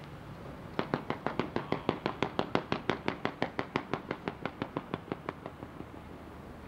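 Fireworks going off in a rapid, even string of sharp bangs, about six a second, starting about a second in and thinning out near the end.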